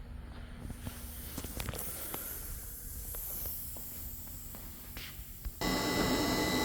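A few light clicks over a low background rumble, then about two-thirds of the way in the DoAll C-916 band saw's electric coolant pump switches on abruptly and runs steadily with a thin high whine, running dry with no coolant in the tank.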